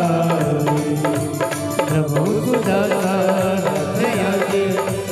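Devotional bhajan music: a Roland Juno-G keyboard playing a sustained melody over tabla and dholak drumming.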